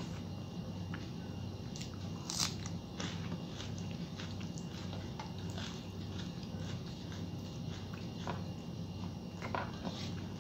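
Close-up chewing and wet mouth clicks of a person eating rice by hand, with scattered short smacks, the loudest about two seconds in, over a steady low hum.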